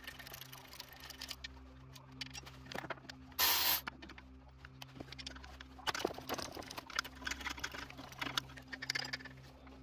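Ratcheting wrench clicking and metal tools clinking as 17 mm bolts are worked loose on an engine. A short loud rasp comes about three and a half seconds in, the clicking thickens in the second half, and a steady low hum runs underneath.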